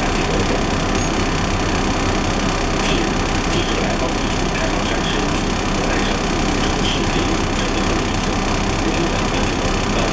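Steady engine running and cabin noise inside a Huanghai DD6181S03 city bus.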